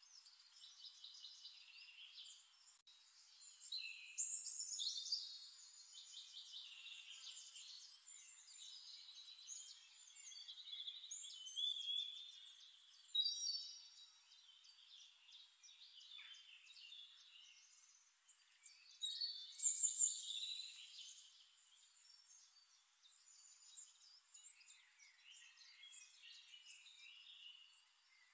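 Small birds singing and chirping, several high, trilling calls overlapping, with louder phrases about four, twelve and twenty seconds in.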